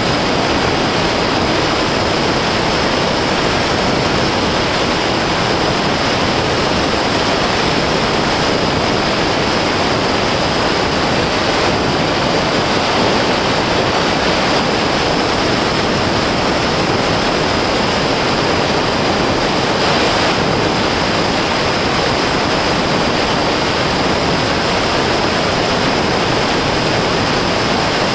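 Steady loud rush of airflow and propeller noise on the onboard camera microphone of an RC fixed-wing plane in flight, with a constant thin high whine over it.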